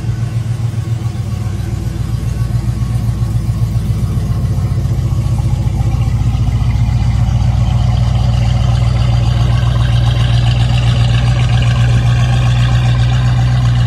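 Dodge Challenger's engine idling steadily, its exhaust giving a rapid, even pulse.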